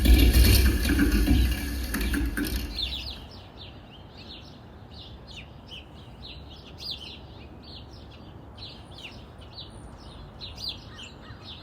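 Dense, loud noise music fades out over the first three seconds, giving way to birds chirping: a steady chatter of many short, quick high chirps over a faint hiss.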